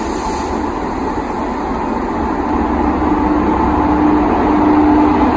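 WAG-5 electric locomotive running slowly past at close range: a steady mechanical hum over a low rumble, growing slightly louder as it comes alongside.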